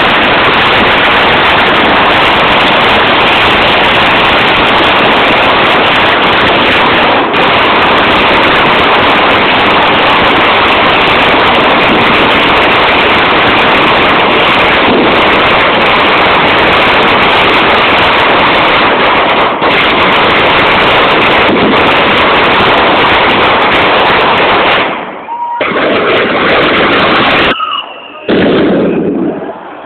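A long chain of firecrackers going off in one continuous, very loud crackle that stops abruptly about 25 seconds in, followed by a few shorter bursts of crackling.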